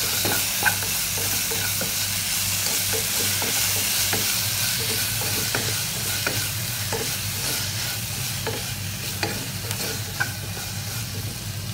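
Tomatoes and crushed shallots, garlic and chillies sizzling in hot oil in a non-stick pot, stirred with a wooden spatula that scrapes and knocks against the pan roughly every three-quarters of a second.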